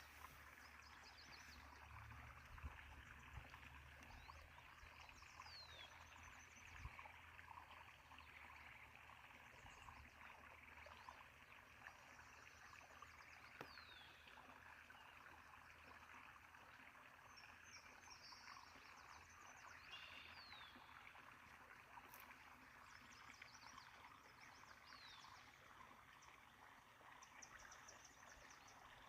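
Faint running water from a stream, a steady rushing, with several songbirds calling over it: short falling chirps and quick trills now and then.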